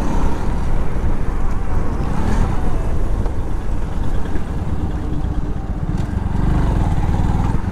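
Hero Honda Super Splendor's 125 cc single-cylinder four-stroke engine running steadily as the motorcycle is ridden.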